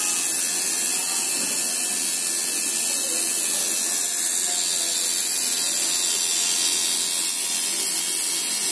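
Dragonhawk sidewinder rotary tattoo machine running on 9 volts: a steady, high, even whir from its motor and needle drive.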